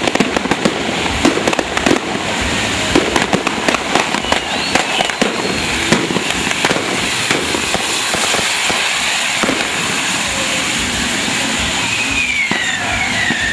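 Barco de fogo and buscapé fireworks burning: a continuous fizzing hiss of spraying sparks, shot through with many sharp pops and cracks that are thickest in the first half. A whistle falling in pitch sounds near the end.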